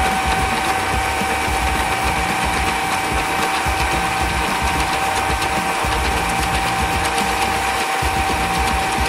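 Homemade electric power hacksaw running with a steady whine, its reciprocating blade sawing through a metal tube.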